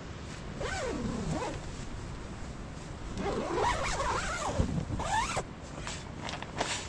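A zipper pulled in quick strokes: a short pull about a second in, then a longer run of pulls from about three to five and a half seconds in. Its rasp rises and falls in pitch with the speed of the pull. Short rustles follow near the end.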